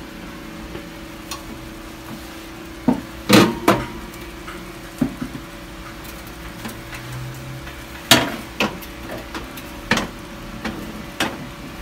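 Glass baking dish and wire oven rack knocking and clinking in several separate sharp knocks as the dish is handled and slid onto the rack, the loudest about three and a half and eight seconds in. A steady hum runs underneath.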